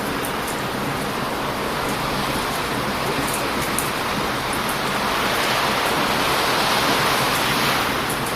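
Ocean waves surging onto a beach, a louder wash building about five seconds in and easing off near the end, with the small sharp pops of a wood campfire crackling over it.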